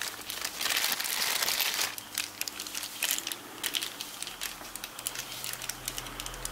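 Clear plastic bags crinkling as the small plug adapters sealed in them are handled. The crinkling is densest in the first two seconds, then breaks into scattered crackles.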